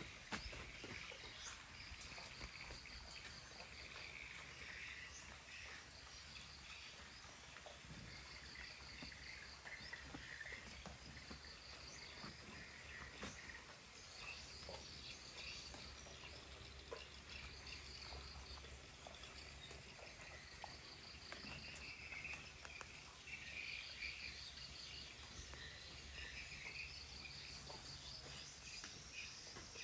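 Faint insects chirping in short, rapid pulse trains that repeat every few seconds, over a low steady hum.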